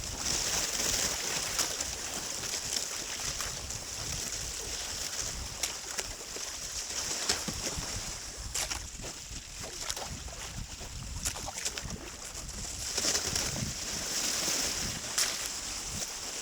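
Kayak paddling: water splashing and lapping against the hull, with scattered small clicks and ticks.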